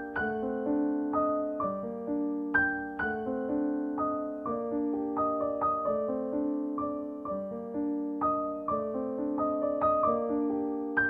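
Background piano music: a slow, gentle melody of single struck notes over a lower accompaniment, each note ringing and fading before the next.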